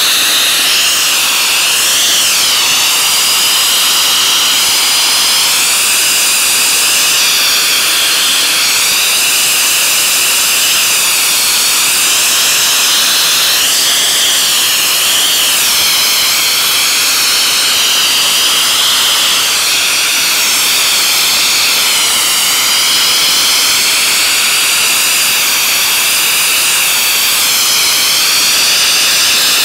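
Wet abrasive blaster nozzle running continuously, a loud, steady hiss of compressed air, water and abrasive stripping paint from steel, its tone wavering slightly throughout.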